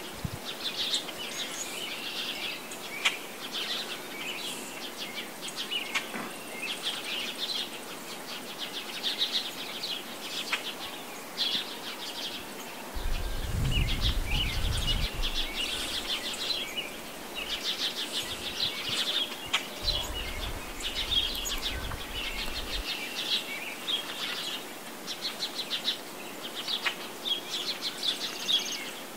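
Small birds chirping and singing throughout in short repeated phrases, with two spells of low rumbling, one just under halfway through and another about two-thirds of the way through.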